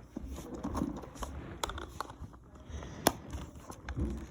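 Handling noises from a small plastic toy: a few light clicks and faint rustling, with one sharper click about three seconds in.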